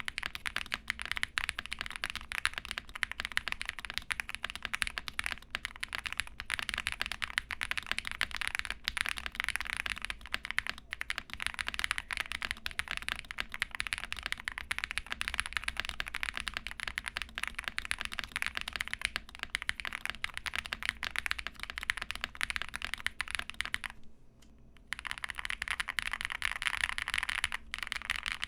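Fast, continuous typing on a custom mechanical keyboard with lubed Durock POM linear switches: a dense run of keystroke clicks that breaks off briefly about 24 seconds in and then resumes.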